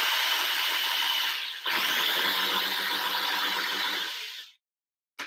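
Electric mini food processor running in two pulses, chopping fresh herbs and garlic for a dressing. A steady motor whir breaks off briefly about one and a half seconds in, then runs again and stops about four and a half seconds in, followed by a short click near the end.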